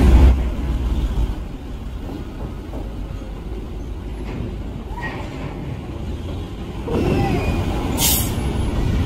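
A tour coach's diesel engine running as the bus moves slowly past, loudest at first and then settling to a steady low rumble. About eight seconds in comes a short, sharp hiss of air from its air brakes.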